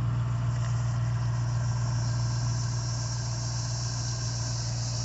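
Steady low hum of an idling engine, unchanging throughout, with a faint even hiss high above it.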